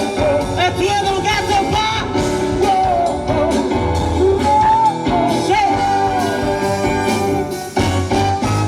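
Rock band playing live, with singing over electric guitar and drums.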